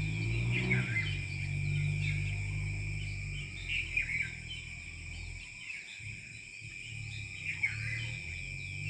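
Rain forest dawn ambience: a steady high insect drone with scattered short bird calls and chirps over it, and a low steady hum that drops away about halfway through and returns near the end.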